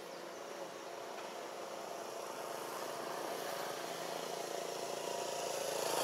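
A motor vehicle's engine running steadily, getting gradually louder toward the end.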